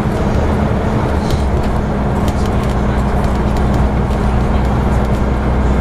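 Scania N94UB Omnidekka double-decker bus under way, heard from the upper deck: a steady low drone of its 9-litre five-cylinder diesel engine and road noise, with faint clicks and rattles scattered through it.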